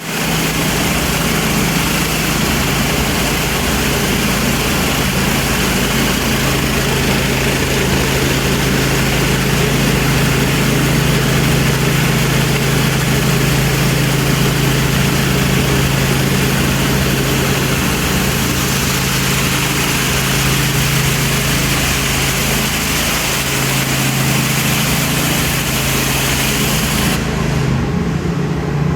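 Hot-water pressure washer running steadily, its engine humming under the loud hiss of the high-pressure spray. The spray hiss cuts off about two seconds before the end while the engine keeps running.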